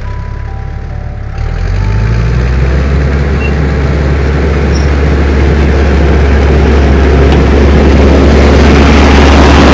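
Heavy vehicle engine rumbling steadily and growing louder, then cutting off suddenly, with a few faint musical notes at the start.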